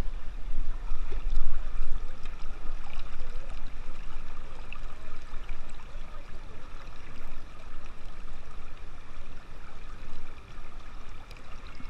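River water rushing and burbling over rocks in a shallow rapid: a steady flowing-water noise.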